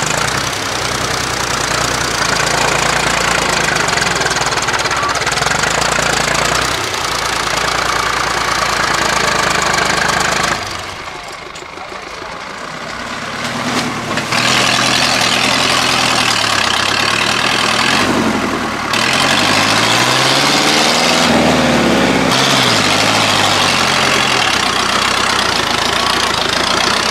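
Tractor engines running, their notes rising and falling as they rev and ease off, with several engine notes gliding and crossing about twenty seconds in. The engines drop quieter for a few seconds about eleven seconds in.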